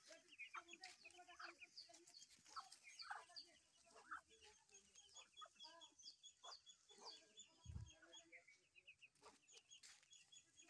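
Faint, scattered clucking calls and high, quick peeping chirps of farmyard fowl, with a brief low thump a little past the middle.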